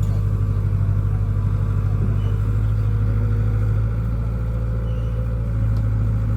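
Heavy diesel engine running steadily with a deep drone, which eases slightly a little past halfway.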